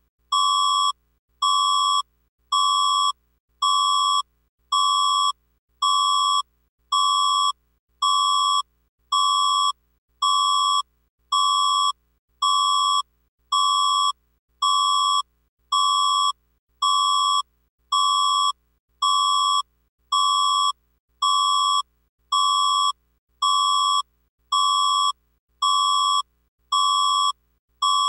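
Alarm tone of a fan-made mock emergency warning broadcast: a steady electronic beep near 1 kHz, each about three quarters of a second long, repeated about once a second with short silent gaps.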